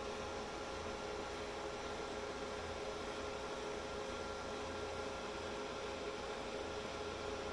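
Dell PowerEdge 2850 rack server's cooling fans running during its power-on self-test: a steady whir and hiss with a couple of held tones, unchanging throughout.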